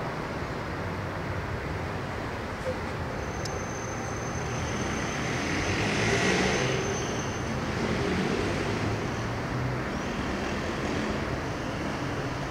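City traffic noise: a steady rumble of road vehicles that swells louder about halfway through as a vehicle passes closer. A thin high whine runs for a few seconds in the middle.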